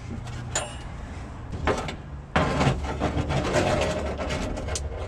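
Handling noises as a compression tester's hose and fitting are moved around an engine bay: a sharp click about half a second in, then knocks and rustling that grow louder about halfway through, over a steady low hum.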